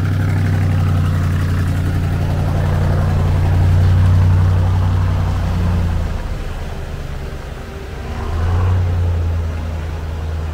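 Diesel engine of a 4x4 expedition truck running on the move, swelling about four seconds in, dropping back past the middle and pulling harder again near the end.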